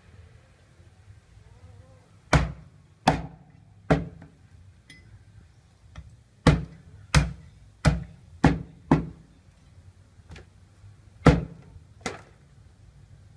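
Heavy cleaver chopping through a goose carcass onto a round wooden chopping block: about ten sharp chops, three spaced chops, a short pause, then a quicker run.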